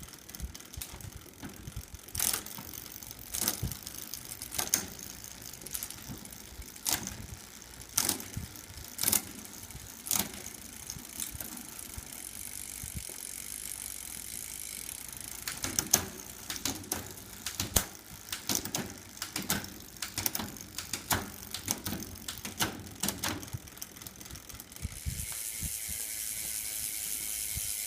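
Bicycle drivetrain with Campagnolo 11-speed parts being run and shifted while the bike is tested: sharp separate clicks of gear changes, a quicker run of clicks in the later part, and the rear hub's freewheel ratchet buzzing near the end.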